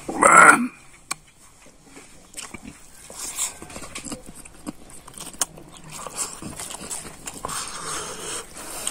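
Chewing and small mouth clicks from a man eating rice by hand, with one short, loud burst of sound about half a second in.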